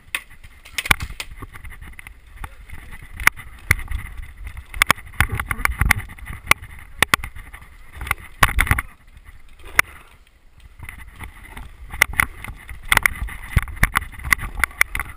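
Irregular sharp clicks and knocks, some in quick clusters, over low rumbling thumps, from a paintball player moving with a handheld or mounted camera.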